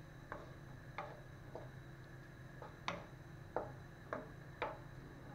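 Wooden spoon knocking against a frying pan while stirring diced calf heart: about eight light, irregular clicks over a few seconds.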